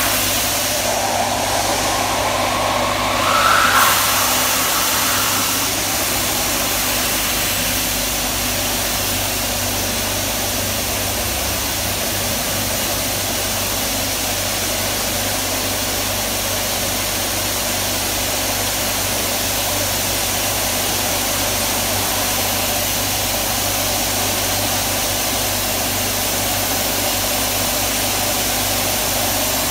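Industrial vacuum drawing catalyst pellets up a catalyst removal robot's suction hose: a steady rushing noise over a low machine hum. In the first few seconds a rising whine climbs and then fades into the even rush.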